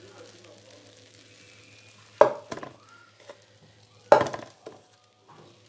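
Two sharp knocks on the metal baking tray, about two seconds apart, each followed by a few lighter clicks, over a faint sizzling from the hot, freshly baked pastry.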